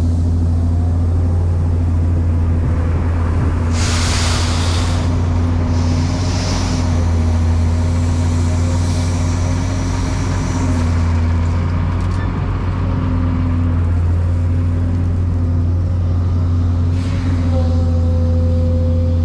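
Excavator's diesel engine running steadily, with a few brief hissing bursts over it, about four, six and seventeen seconds in.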